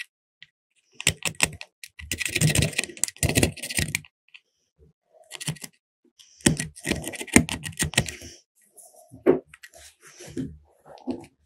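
Bursts of clicking and scraping as a small metal lighter is worked on by hand, coming in several irregular spells with short pauses between.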